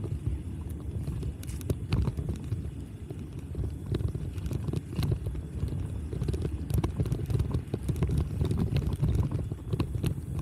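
Wind rumbling on the microphone of a camera on a moving bicycle, with scattered light clicks.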